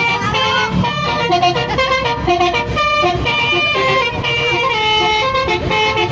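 Indonesian 'telolet' bus horn, a multi-trumpet air horn playing a quick tune: several notes sound together and change step by step through the whole stretch.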